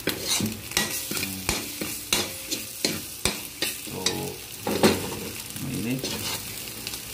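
Metal spatula scraping and knocking against an aluminium wok, about two or three strokes a second, while stirring a frying sardine-and-egg mixture, over a steady sizzle.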